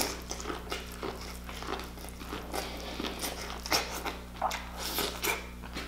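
Close-up eating sounds: biting into a sauce-dipped corn on the cob and chewing it, with many short mouth clicks throughout.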